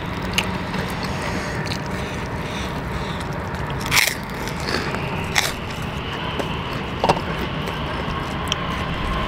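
Close eating sounds of hand-eaten ayam geprek (smashed fried chicken) with rice: chewing and biting, with a few sharp clicks and crunches, the clearest about four seconds in, over a steady background hiss.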